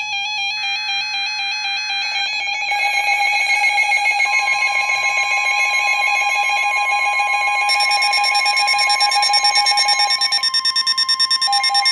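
Emergency Alert System alert signal: loud electronic warbling data tones in several layers, with a steady tone joining about four seconds in, heralding a special marine warning.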